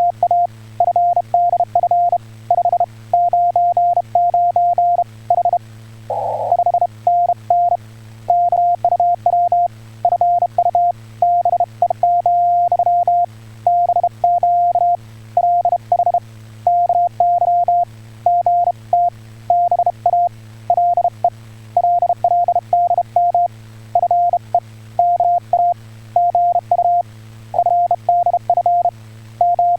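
Ham radio Morse code (CW) signal: one steady tone keyed on and off in quick dots and dashes, sending Korean (Hangul) Morse, over a steady low hum.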